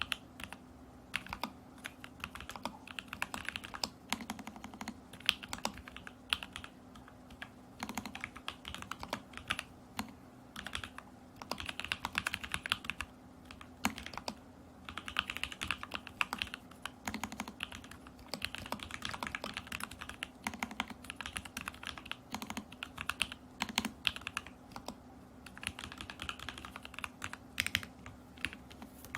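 Typing on an Alice-layout mechanical keyboard with lubed and filmed Lavender switches in a stacked acrylic case. Fast runs of keystrokes come in bursts of a few seconds, broken by short pauses, as in typing prose.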